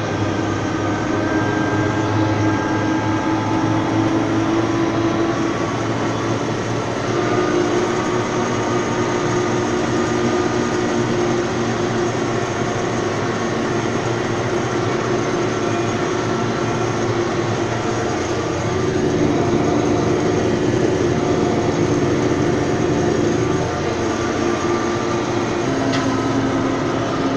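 Tractor engine running steadily under way, a continuous drone whose pitch steps slightly a few times.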